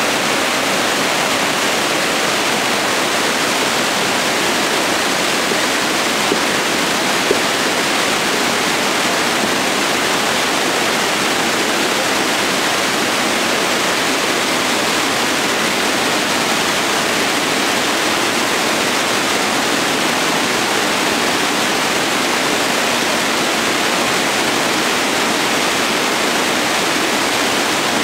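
Steady rush of white water pouring over a rocky cascade.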